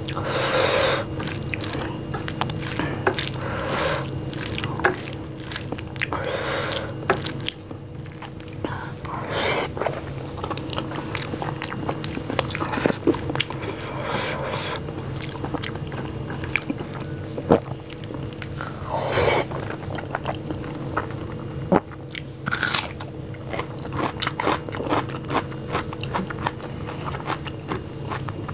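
Close-miked eating by hand: chewing and wet mouth clicks and smacks over rice mixed with mashed bhorta, with many sharp clicks and a longer squishy burst every few seconds as the fingers mix the rice on the plate.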